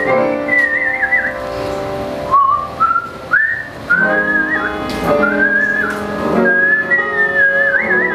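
A woman whistling a slow melody into a microphone, holding notes with a wide wavering vibrato and scooping up into several of them. A swing big band backs her with held chords.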